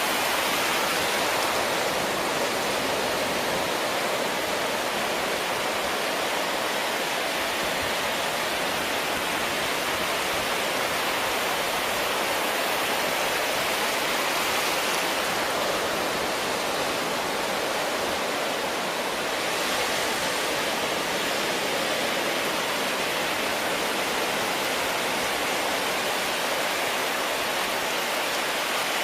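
Steady rush of breaking surf and wind, an even hiss that goes on without a break.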